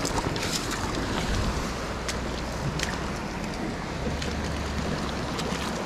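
Small mountain stream running steadily over rocks, with wind buffeting the microphone and a few sharp crunches of footsteps in dry leaves.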